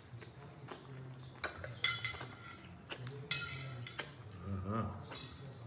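Cutlery clinking against a ceramic dinner plate several times, in sharp separate clinks.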